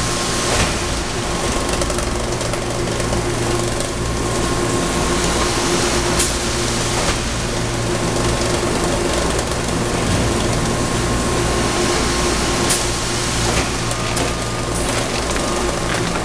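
Thermoforming production line running, a steady machine hum with several held tones, broken twice by sharp clacks about six seconds in and near the end.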